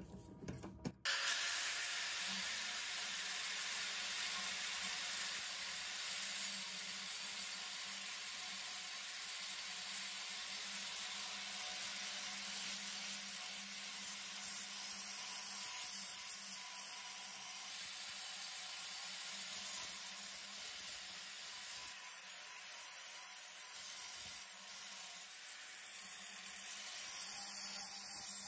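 Electric power tool running steadily against metal: a continuous abrasive hiss over a low, even motor hum, starting abruptly about a second in. It is taking rust off a heavily rusted knife blade.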